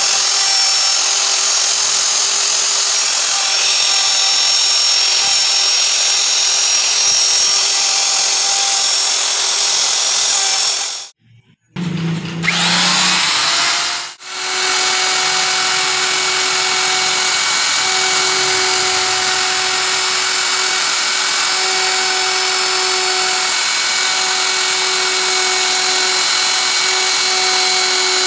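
Hand-held electric plunge router running at speed, its bit cutting a carved flower pattern into a wooden board: a steady motor whine over the hiss of cutting. The sound drops out briefly about eleven seconds in and again just after fourteen seconds.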